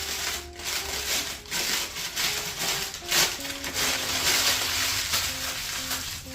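Parchment paper being crumpled and scrunched by hand to soften it and take out its stiffness, a crisp crinkling in irregular surges, loudest about three to five seconds in. Background music plays underneath.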